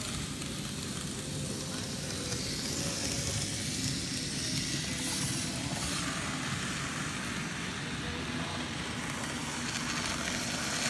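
N scale model train running along layout track, a steady low rumble with a hiss over it from the small motor and the wheels on the rails.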